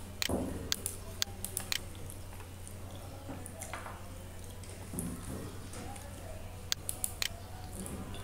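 Scattered sharp computer mouse clicks: several in quick succession in the first couple of seconds, then a few more near the end, over a steady low hum.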